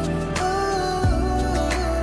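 Background pop music with a steady beat, a low bass line and a melody.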